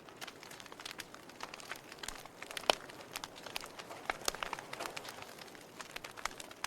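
Burning logs in a fireplace crackling, with irregular sharp pops and snaps over a faint steady hiss; the loudest pop comes a little under three seconds in.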